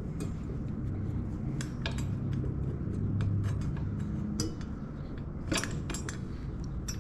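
Light metallic clinks and taps of a wheel spacer being worked into place on an electric motorbike's front wheel hub, a few scattered and a quick cluster about two-thirds of the way through, over a steady low hum.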